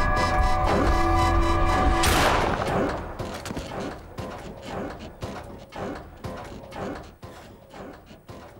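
Low, droning suspense music with sustained tones, cut off about two seconds in by a single sharp crash that rings away. After it, small irregular clicks and taps about twice a second.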